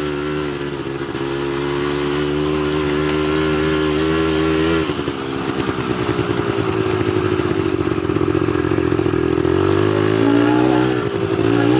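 ATV engine running under way at a steady note. About five seconds in, the note drops and turns uneven and pulsing, then it climbs again near the end.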